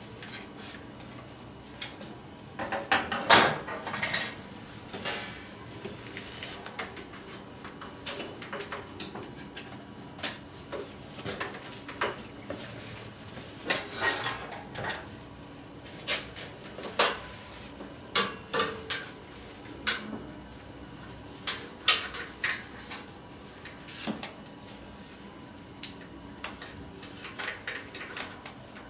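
Scattered metallic clinks and clanks of tools and steel exhaust pipe parts being handled on a steel workbench, with a louder cluster of clanks about three seconds in.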